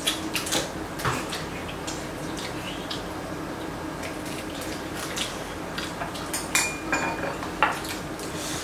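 Chopsticks and spoons clicking and clinking against bowls and a metal pot during a meal: scattered light taps, a couple of sharper clinks a little past halfway, over a faint steady hum.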